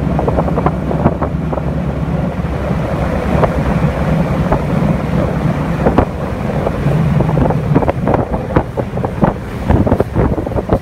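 Twin outboard engines of a rescue boat running steadily underway. Wind buffets the microphone, and irregular slaps and splashes come from the hull running through choppy water.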